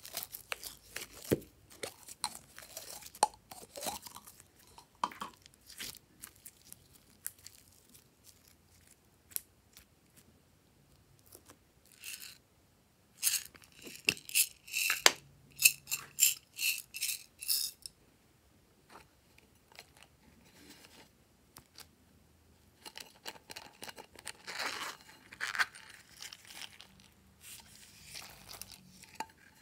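Close handling of thin plastic containers of slime: a thin plastic bottle crinkling and crackling as it is squeezed, then a run of sharp clicks from a hard plastic lip-shaped case about halfway through. Another stretch of crackling and small rattling comes near the end as tiny beads are tipped out.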